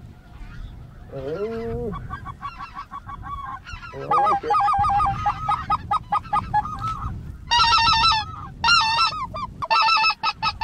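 Flock of greater white-fronted geese (specklebellies) calling: rapid, high, yelping notes that start about two seconds in, grow dense and louder about four seconds in, and come in the loudest bursts near the end.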